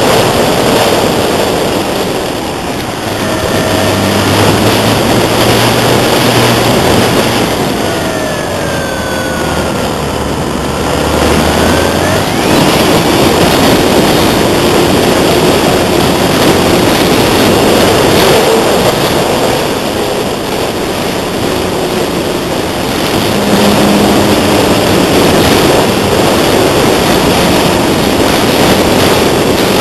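Strong wind rushing over the microphone, with the whine of a radio-controlled AcroMaster model plane's electric motor and propeller. The whine's pitch falls and then rises again about ten seconds in.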